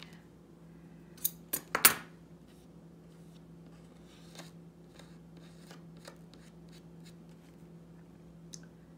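Scissors snipping: four quick, sharp snips a little over a second in, followed by faint ticks and rustles of small kit pieces being handled.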